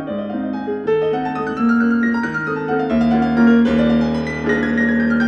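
Background piano music, with notes struck and held so that they overlap.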